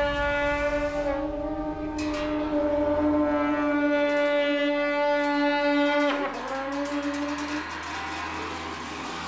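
Tibetan monastic wind instrument playing long held, reedy notes rich in overtones. The note breaks and bends about six seconds in, and the playing is softer after that.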